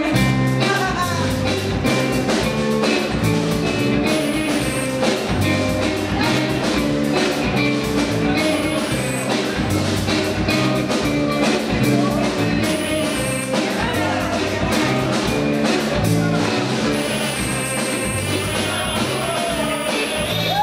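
A live band plays a rock arrangement: electric guitar, bass guitar, keyboards and a drum kit, with a woman singing.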